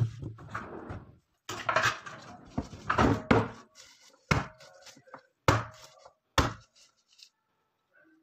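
Garlic cloves being struck and crushed on a cutting board with a metal tool: a run of knocks and clatters, ending in three sharp single strikes about a second apart.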